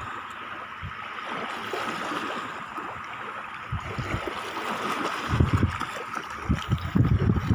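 Shallow seawater washing gently at the shoreline, with splashing as a child wades and then sits down in it. From about five seconds in, wind buffets the microphone in loud, low, rumbling gusts.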